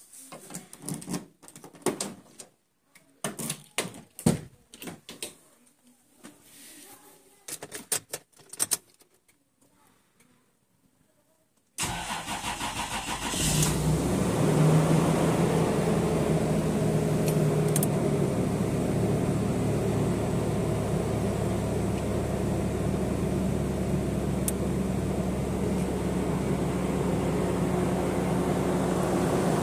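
Key turning in a car door lock and the door opening and shutting with clicks and knocks, then about 12 seconds in a Toyota Land Cruiser Prado engine cranks briefly, catches and settles into a steady idle.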